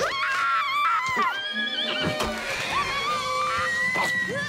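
A cartoon horse whinnying with a wavering, high call, mixed with a girl's long frightened scream as she is thrown from its back.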